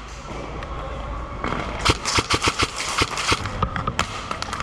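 Airsoft guns firing a quick string of sharp shots, several a second, over a steady hiss of background noise.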